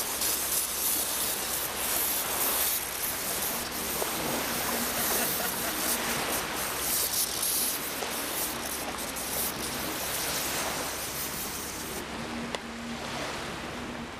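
Steady rushing noise of wind and lake surf at an open beach, rising and falling in strength.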